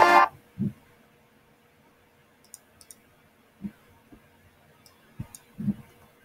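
Background music cuts off a moment in, then a scattering of short computer mouse clicks and soft desk taps over a quiet room.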